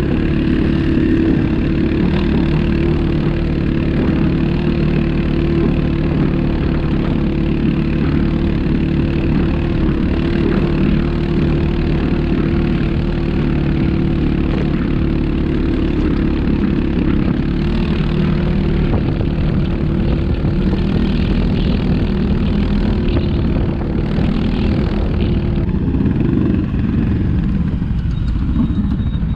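ATV engine running steadily under way, its note shifting about two-thirds through and easing near the end.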